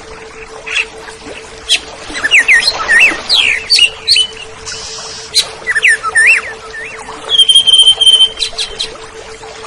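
Oriental magpie-robin (kacer) singing a varied, fast song of quick up-and-down whistles and sharp clicks, then a long held whistle about three-quarters of the way through.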